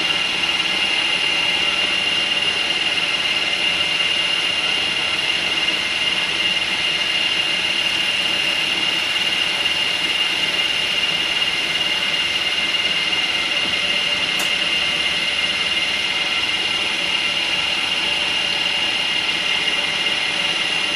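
Small milling machine's wheel-cutting spindle running steadily at speed, with a constant high whine.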